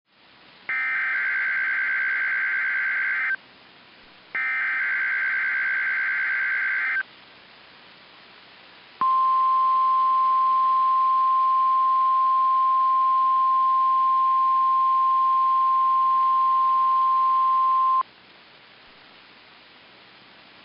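NOAA Weather Radio required weekly test. Two bursts of SAME digital header data, each a buzzing, warbling screech lasting about two and a half seconds, are followed by the steady single-pitch warning alarm tone, held for about nine seconds and cutting off sharply. Faint receiver hiss fills the gaps and follows the tone.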